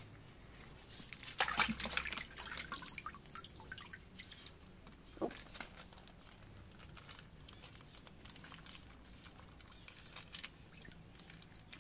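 Small splashes, drips and sloshing as hands work a plastic fish bag open under the water of a tub, busiest between about one and three seconds in, then quieter.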